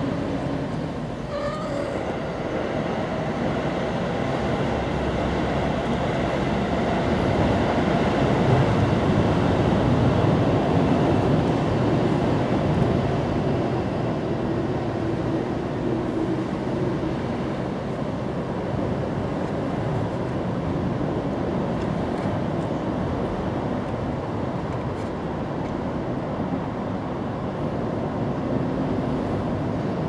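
Steady rumbling background noise that swells and fades back down around the middle.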